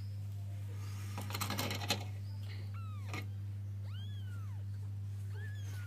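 A newborn kitten, about two weeks old with its eyes still shut, gives three short, high-pitched mews, each rising and falling in pitch, calling for its mother. There is a short rustle of cloth about a second in, over a steady low hum.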